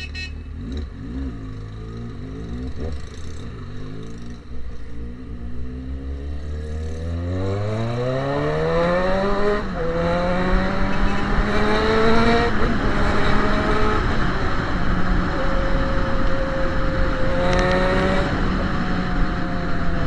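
Yamaha XJ6's inline-four engine through a straight-pipe exhaust: it runs at a low, steady idle, then about seven seconds in revs up as the bike pulls away, drops in pitch at a gear change near ten seconds, climbs again and settles to a steady note while cruising.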